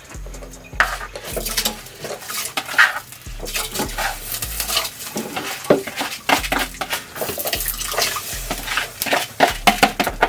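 Pots and utensils clattering and scraping, with water sloshing, as rice is washed and put into a cooking pot of water.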